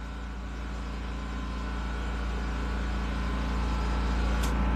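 Air compressor's engine running steadily, its hum slowly growing louder.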